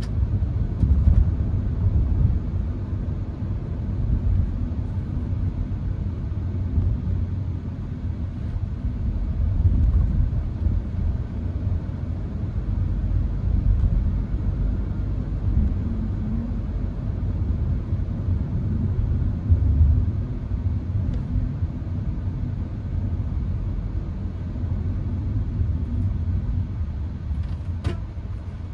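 Inside the cabin of a Hyundai HB20 1.6 automatic on the move: a steady low rumble of engine and road noise. A single sharp click near the end.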